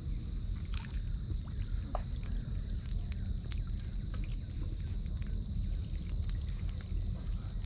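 Riverbank ambience: a steady high-pitched insect drone over a constant low rumble, with scattered small clicks and wet slaps.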